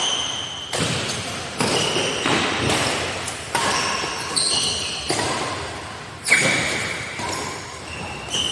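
Badminton rally: rackets striking the shuttlecock about ten times, a sharp hit with a short ringing ping every second or so, echoing in a large hall.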